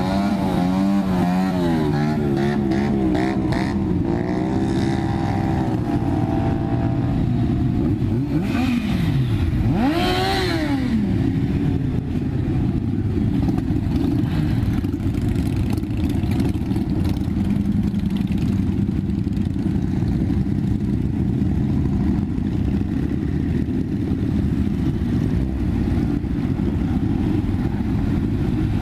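Many motorcycle engines rumbling steadily as a long column of bikes rides past at low speed. Over the first few seconds several engine notes waver in pitch. About nine and ten seconds in, two throttle blips rise and fall.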